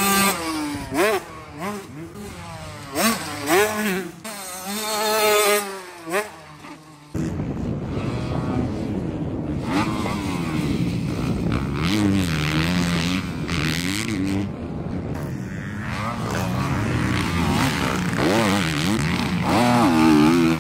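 Motocross dirt bike engines revving on the track, the pitch rising and falling with each throttle blip and gear change as bikes pass. About seven seconds in it changes abruptly to a closer, steadier engine note that keeps rising and dipping.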